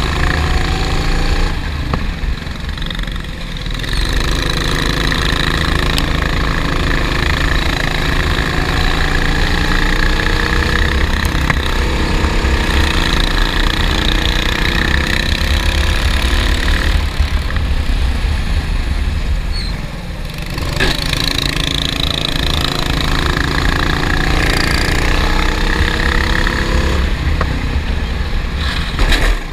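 A racing kart's engine heard from on board, under load: its pitch climbs slowly as the kart accelerates, then drops back when the driver lifts off for corners, about two seconds in and twice more around the middle.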